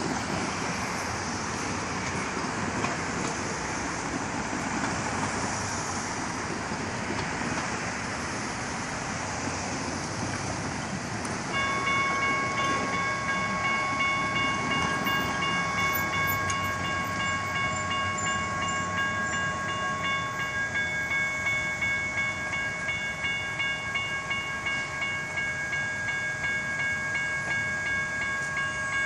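Railroad grade-crossing warning bell starting to ring suddenly about 11 seconds in and ringing on steadily over a background of street noise. The crossing signal is activating ahead of an approaching light-rail train.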